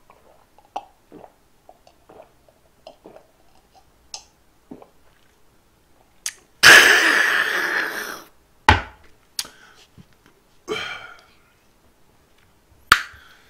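A man swallowing a shot of somaek (soju mixed with beer), small mouth sounds, then a loud raspy exhale lasting about a second and a half after the drink goes down. A sharp knock follows as the glass is set down on the wooden table, then a shorter breathy exhale.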